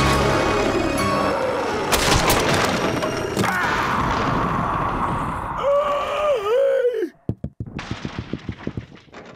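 Cartoon soundtrack: music gives way to a loud crash about two seconds in as a creature bursts down through a wooden floor, followed by rumbling noise. Near the end comes a wavering falling tone, then a run of faint knocks that die away.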